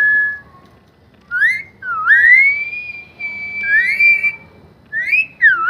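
Parrot whistling a tune: a short held note at the start, then a run of clear sliding whistles, some rising, one held for about a second, ending with two quick down-and-up swoops.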